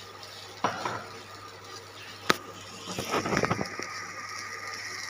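Spatula stirring diced vegetables in a kadai, mixing in the salt. There is a knock against the pan about half a second in, a sharper tap just after two seconds, then a quick run of scraping strokes around three seconds.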